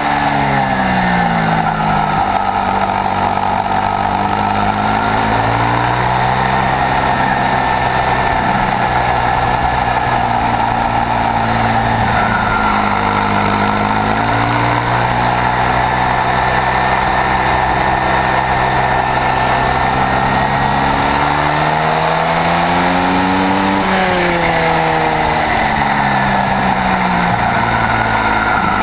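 Swissauto 250 two-stroke twin kart engine at racing speed, heard from on board the kart. Its pitch climbs and drops several times as it revs up and comes off the throttle.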